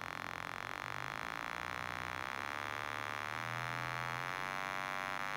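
Bare loudspeaker cone driven by a function generator, playing a low, buzzy test tone that rises slowly in pitch as the frequency dial is turned up through the lowest audible range.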